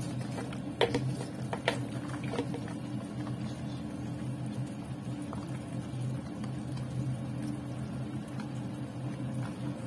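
Soy-vinegar stew simmering in a metal wok as snow peas are tipped in and moved with chopsticks: a few sharp taps against the pan in the first couple of seconds, over a steady low hum and gentle bubbling.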